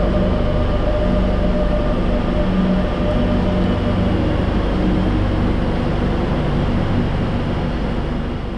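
Madrid Metro Line 10 train running: a steady rolling rumble with a sustained motor whine. The sound fades out near the end.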